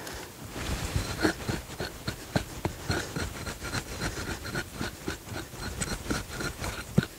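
A short-handled hand digging tool chopping and scraping into dry, crumbly soil, with irregular knocks a few times a second, as the hole for a wild dog trap is dug out.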